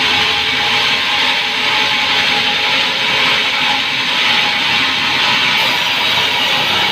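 Power saw running steadily through pine board, a continuous loud cutting noise with a faint steady whine.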